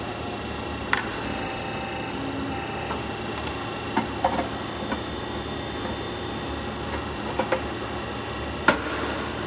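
Downspout forming machine running with a steady mechanical hum, with sharp metallic clicks and knocks at irregular intervals, the loudest near the end.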